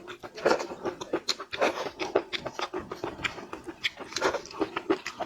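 Close-miked eating of seafood: irregular chewing and mouth smacks, with sharp clicks several times a second.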